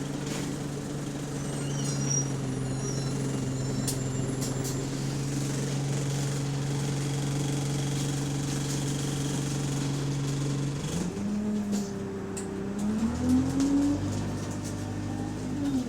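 Bus SE152's diesel engine, which has an exhaust leak, running at a steady speed for about eleven seconds. It then revs up as the bus accelerates, its pitch rising and dropping back near the end as the gearbox shifts up.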